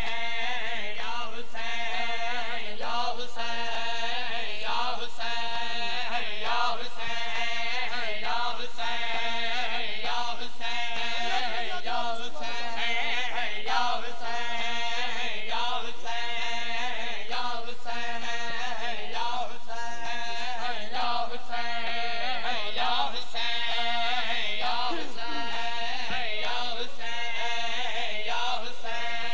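Men's voices chanting a nauha, a Shia mourning lament, in a continuous rhythmic melody, with sharp beats keeping time throughout.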